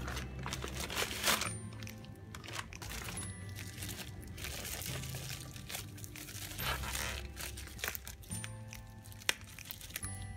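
Plastic mailing bag and bubble wrap crinkling and tearing in the hands in irregular bursts as a package is pulled out and handled, over background music.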